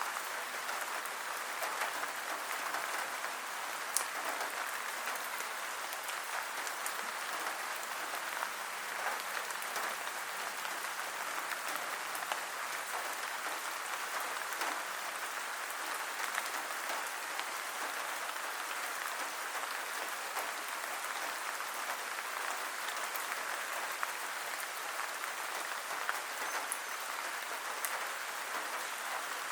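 Steady heavy rain: a dense, even hiss of falling drops, with now and then a sharper single drop tick.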